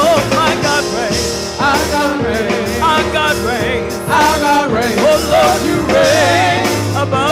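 A woman singing a gospel praise song with vibrato into a microphone, accompanied by an electronic keyboard playing sustained chords. A low bass note comes in near the end.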